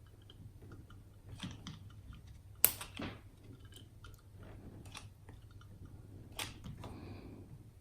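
Light scattered clicks and knocks of a hot-glue gun and a power-supply casing being handled while glue is put on a loose circuit board, with one sharp click about two and a half seconds in.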